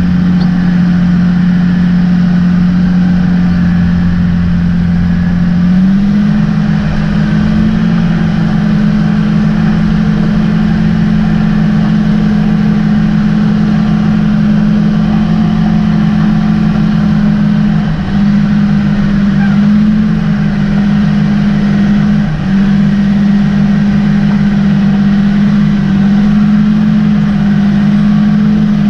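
Caterpillar 615C elevator scraper's diesel engine running steadily, heard from inside the operator's cab. Its pitch steps up about six seconds in and briefly dips twice later on.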